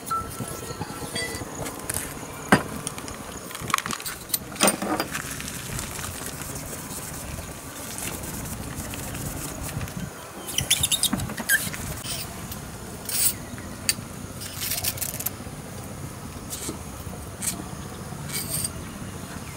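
Scattered clicks and light knocks of small metal and plastic equipment being handled: parts of a veterinary dart syringe, its metal tube and the plastic kit box. The clicks come in a small cluster about halfway through, over a steady outdoor background.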